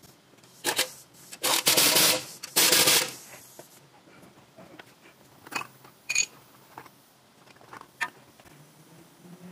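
Three short bursts of a pneumatic impact wrench running on the axle's bracket bolts, followed by a few light metal clinks as the tool and parts are handled.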